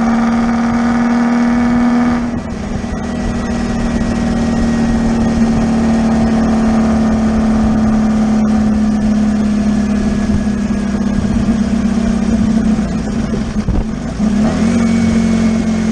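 Beach buggy engine running at a steady cruising speed on the road, a loud, even drone. About two seconds in its higher overtones drop away, and near the end it dips briefly and then rises back to its steady pitch.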